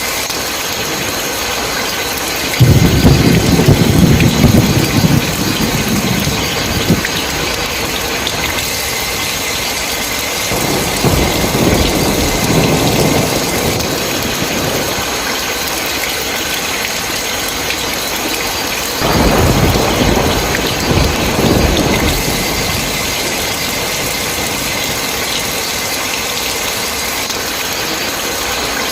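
Steady heavy rain with three rolls of thunder. A sudden loud clap comes about three seconds in and rumbles for several seconds. A softer rumble swells up near the middle, and another sudden rumble follows about two-thirds of the way through.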